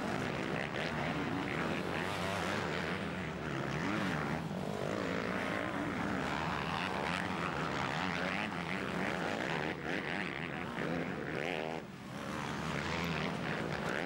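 Motocross bike engines revving hard, their pitch rising and falling as the riders accelerate and shift over the jumps, several bikes overlapping, with a brief lull about twelve seconds in.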